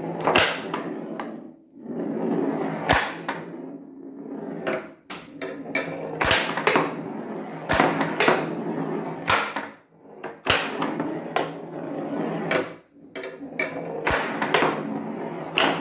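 Pinball flippers on a bare plywood whitewood, their 30 V solenoid coils switched by relays, firing with sharp clacks again and again at irregular intervals. Between the hits the steel ball rolls up and back down the wooden playfield with a rumble that swells and fades.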